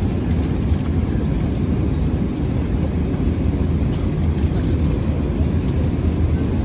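Steady low rumble of airliner cabin noise in flight, engines and airflow heard from inside the cabin during the approach to landing.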